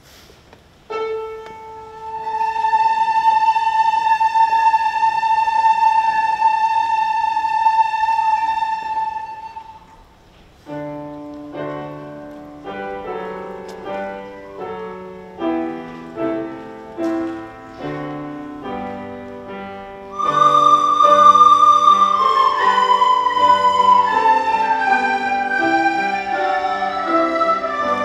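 Instrumental music. A single high wind-like note is held for about eight seconds. Then a piano plays separate notes. Louder sustained notes follow, gliding slowly downward in pitch.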